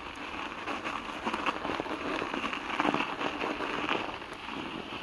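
Mountain bike tyres crunching over packed snow: a dense, crackling patter that grows louder in the middle, then eases.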